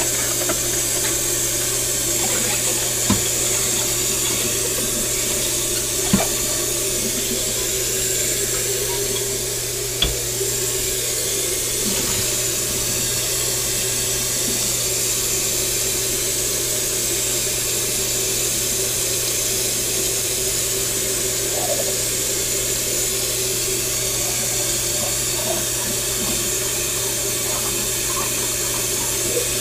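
Kitchen tap running steadily into a stainless steel sink while dishes are scrubbed by hand, with three sharp knocks of dishware against the sink in the first ten seconds or so.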